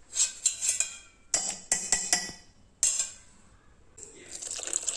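Metal utensils clinking and clattering against cookware in several quick bursts, some with a short ringing tone. A softer steady hiss of handling or stirring comes in about four seconds in.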